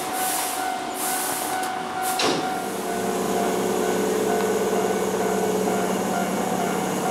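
Hankyu 6000-series electric train rolling slowly along the platform as it pulls in. Three short hisses come in the first two seconds, then a steady hum from the train's running gear.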